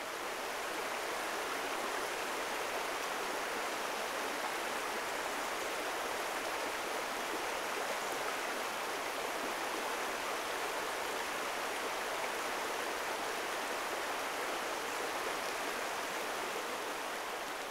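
Shallow river running steadily over a gravel bed: an even, continuous rush of water.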